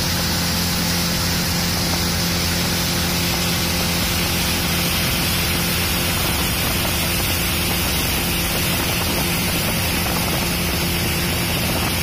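Motorboat engine running at a steady pitch, with a steady rush of water and wind beneath it.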